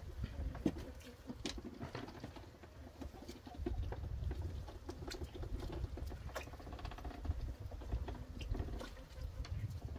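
A duck bathing in a small pond, dipping and shaking in the water with irregular small splashes and patters.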